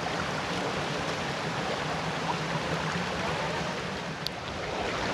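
Shallow rocky stream rushing over stones in a steady wash of water noise.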